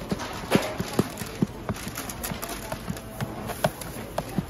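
Soft, sticky hotteok dough being kneaded by a gloved hand in a plastic cooler: repeated wet slaps and squelches as the dough is lifted and thrown back down, a few irregular strokes a second.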